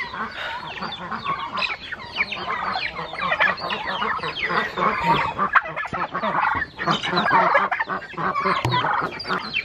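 Many birds calling at once in a dense, overlapping chorus of short chirping calls.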